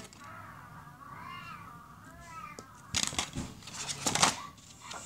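A series of short, high, rising-and-falling vocal calls, like meowing, followed by two loud clattering knocks about three and four seconds in.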